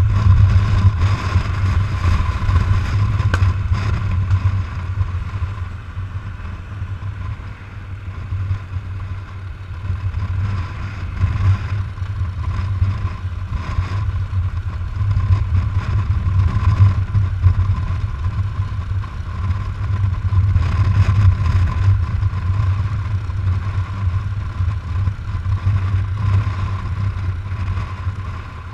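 Harley-Davidson FLHT's V-twin engine running under way on the road, with wind rush. The engine note eases off around six seconds in, then builds again.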